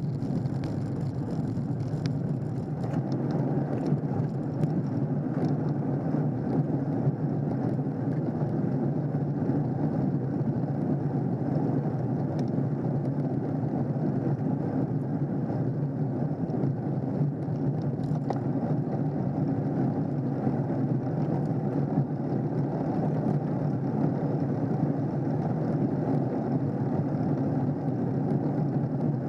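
Steady wind and road noise on a bicycle-mounted camera riding in a pack of road cyclists: air rushing over the microphone with tyre hum on the tarmac, at an even level throughout.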